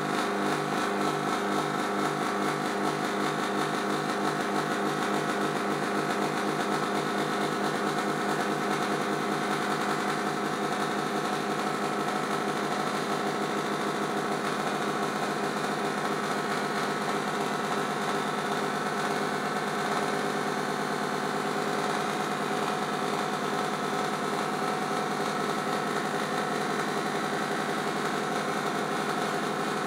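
FusoElektronique NDR-113 noise machine, built around the Texas Instruments SN76477 sound chip, putting out a dense electronic drone of many steady tones. A pulsing in its low buzz speeds up over the first several seconds until it merges into a continuous buzz.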